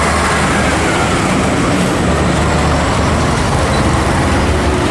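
Heavy road traffic with trucks passing: a steady low engine rumble under constant tyre and road noise.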